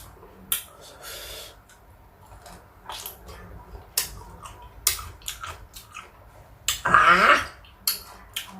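A person biting and chewing crunchy sour fruit at close range: sharp crunches and mouth clicks every second or so. About seven seconds in, a drawn-out voiced sound falls in pitch.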